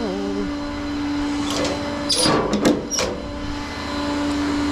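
Tow truck engine running with a steady hum, and a brief clatter of metal clanks about two to three seconds in as tow gear is handled.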